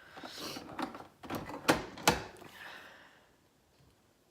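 Household items being handled: a few sharp clicks and knocks with some light rustling, the two loudest knocks close together about two seconds in.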